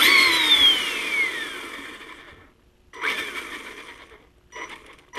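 Dynamite 15-turn brushed electric motor in an RC car revved by throttle blips, with its pinion and spur gears: a high whine jumps up, then falls in pitch as the motor coasts down. This happens three times: a long spin-down of about two seconds first, then two shorter ones.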